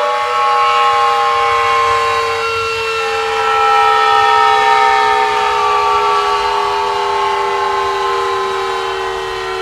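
Klexen DS8 washing machine's motor whining as it winds down from its spin cycle, several tones sliding slowly and steadily lower in pitch as the drum slows.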